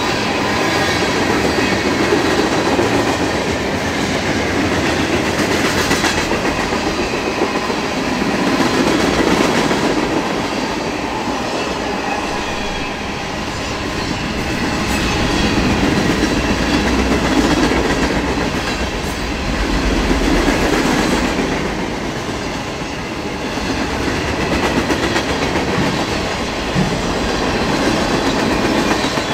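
Freight train cars rolling past at speed: the steady rumble of steel wheels on rail, with a few sharp clacks, swelling and easing in loudness as the cars go by.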